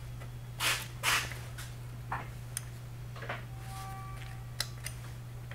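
Hard plastic model-kit body panels being handled and fitted together: two short scrapes about half a second and a second in, then a few lighter clicks and rubs, over a steady low hum.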